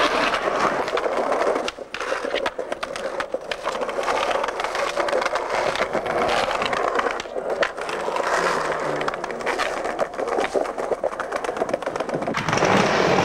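Skateboard rolling on concrete paving: a steady rumble of the wheels, broken by many short sharp clacks and knocks of the board and trucks.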